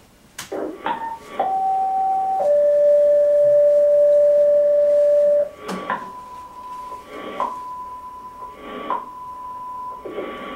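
Fire dispatch radio recording played over a loudspeaker: a two-tone sequential pager tone-out, a higher tone for about a second, then a lower tone held about three seconds. Then three shorter, higher beeps, each led by a burst of radio static.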